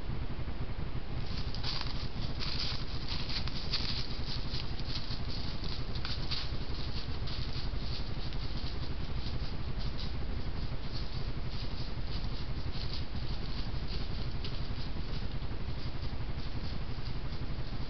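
A whitetail buck's footsteps rustling and crackling through dry fallen leaves, beginning about a second in, thickest over the next several seconds and thinning out near the end, over a steady low background rumble.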